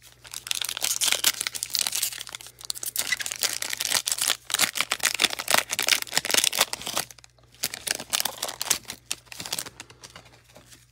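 Foil wrapper of a 2021-22 Panini Donruss basketball card pack crinkling and tearing open by hand, a dense, rapid crackle for about seven seconds, then fainter rustling near the end.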